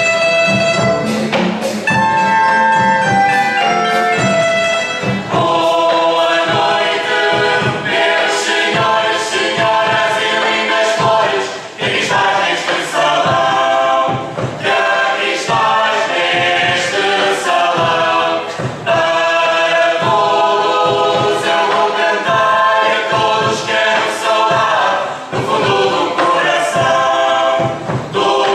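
A recorded song by a mixed Portuguese student tuna: many men's and women's voices singing together in chorus over instrumental accompaniment, with regular sharp percussive strikes.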